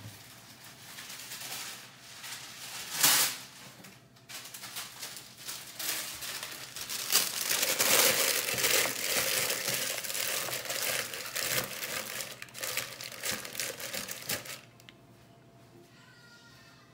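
Parchment paper crinkling and rustling as it is pressed and folded into a nonstick air fryer basket, with one loud sharp crackle about three seconds in. The crinkling stops about two seconds before the end.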